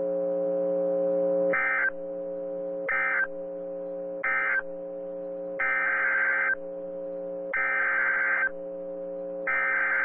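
NOAA Weather Radio EAS/SAME digital data bursts: three short shrill chirps (end-of-message), then three longer screechy bursts about a second each (the header for the next warning cancellation). A steady low buzz runs underneath.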